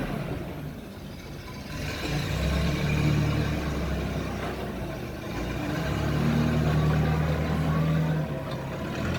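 Propane-fuelled EP CPQD25N forklift engine running, growing louder twice as the revs come up, then settling back.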